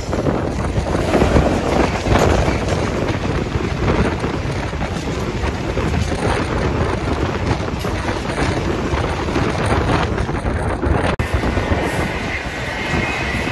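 Diesel-hauled passenger train from a CNR CKD Dalian locomotive passing at close range: steady rumble and rushing noise with wind buffeting the microphone. After a cut about 11 seconds in, a steady high whine joins the train noise.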